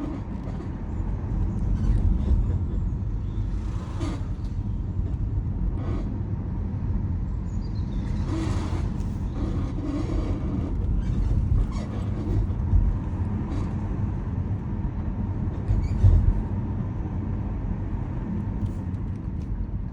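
Tesla front suspension creaking and knocking irregularly while driving, over a steady rumble of road and tyre noise, with a louder knock about sixteen seconds in. The noise persists although nearly all front-axle parts have been replaced and greased, and its cause is unknown; it sounds like an old carriage rattling along.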